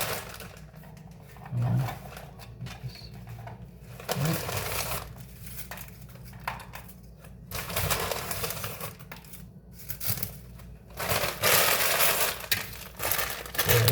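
Potato chip bag crinkling in several spells as wavy barbecue chips are taken out and handled, the loudest spell near the end.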